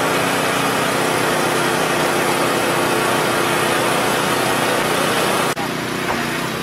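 A vehicle engine idling steadily with a dense, even hum. The sound breaks off abruptly about five and a half seconds in and carries on a little quieter.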